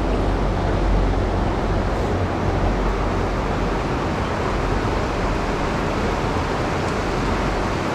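Steady rush of flowing river water, even and unbroken, with a deep rumble underneath.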